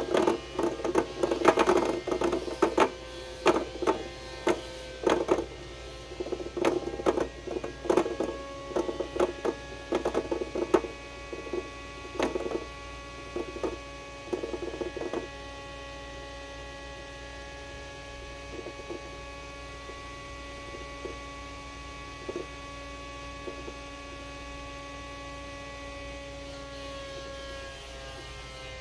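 Two MDF gears coasting down from high speed, clattering in irregular knocks that thin out and stop about fifteen seconds in. After that only a steady hum is left.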